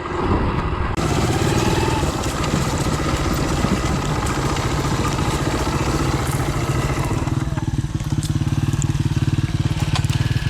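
Motorcycle engine running as the bike rides along, its note settling into a steadier pulse in the last few seconds.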